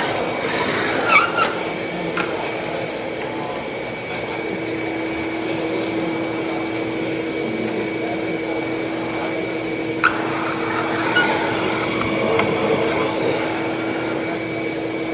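Shop vacuum running steadily, with a few brief knocks.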